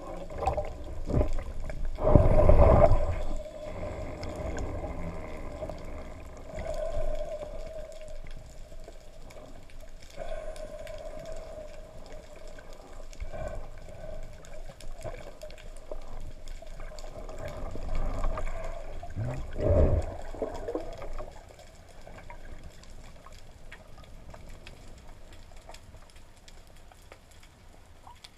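Water noise picked up by an action camera in its underwater housing on a speargun during a breath-hold dive: a loud rush of splashing about two seconds in as the diver leaves the surface and another surge around twenty seconds, over a steady faint hum, growing quieter in the last several seconds.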